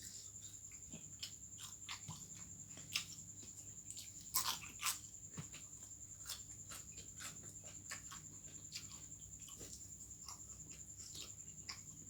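Close-up mouth sounds of a person chewing and biting into chicken head: irregular wet clicks and small crunches, with a few louder crunches about four to five seconds in. A steady faint high-pitched whine runs underneath.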